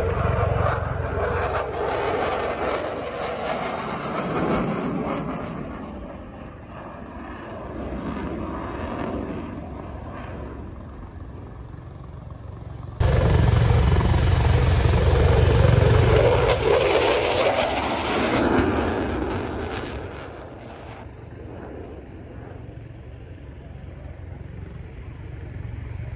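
Eurofighter Typhoon fast jet's twin jet engines roaring as it flies a display, the noise swelling and fading with each pass. The loudest passage starts abruptly about halfway through and dies away a few seconds later.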